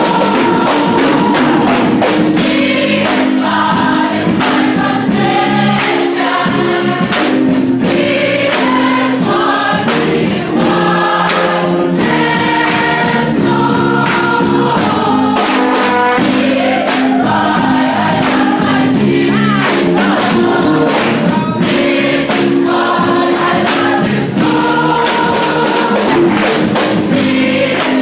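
Choir singing a gospel-style worship song over instrumental accompaniment with a steady beat.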